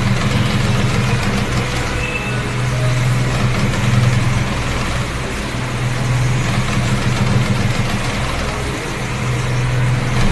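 Steady low car engine hum with road noise, unchanging throughout, with no distinct crash impact.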